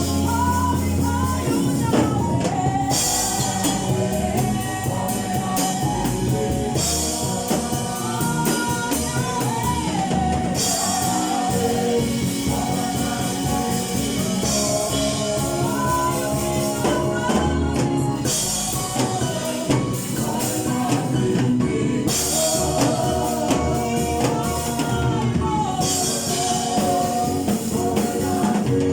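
Church choir singing a song in unison over a band with drum kit, the drums and cymbals keeping a steady beat.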